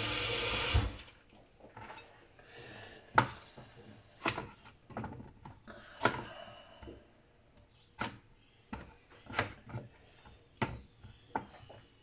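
Kitchen tap running, shut off about a second in. Then a kitchen knife chopping a burdock root into lengths on a cutting board: sharp, uneven knocks of the blade striking the board, roughly one every second.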